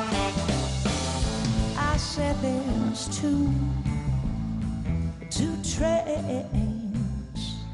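Live blues-rock band playing an instrumental passage between sung verses: a lead line of bending, gliding notes, typical of electric guitar, over bass and drums with cymbal hits.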